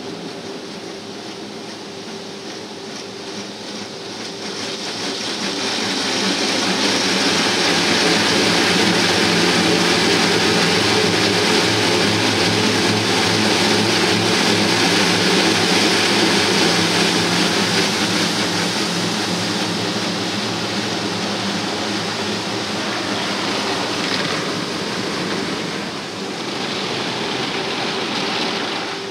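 Automatic car wash spraying water over the car, heard from inside the cabin as a steady rushing hiss over a low machine hum. The spray swells about five seconds in and eases off a little after about eighteen seconds.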